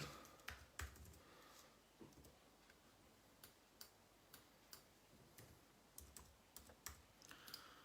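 Faint, irregular clicking of a computer mouse and keys being worked, over quiet room hiss.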